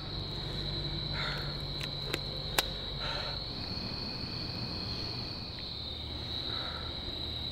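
Crickets chirping in a steady, high-pitched drone over a low, steady hum. Two sharp clicks come a little past two seconds in, the second one the loudest sound here.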